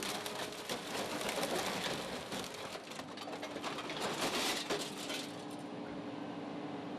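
Scrap metal being crushed in a Sierra shear/baler/logger: dense crackling, creaking and popping of metal under the rams over the steady hum of the machine's power unit. The crackling thins out near the end.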